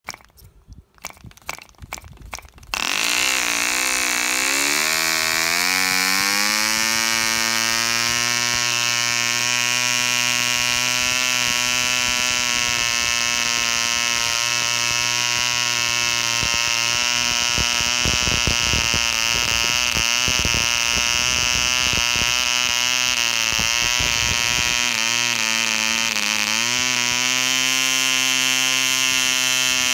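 1957 E.D. Bee Mk II 1 cc model diesel engine being hand-started. It gives a few clicks as the 7x5 propeller is flicked, catches about three seconds in and runs with a high buzz that climbs in pitch over the next few seconds. The note wavers through the middle and rises again near the end as the compression screw is adjusted.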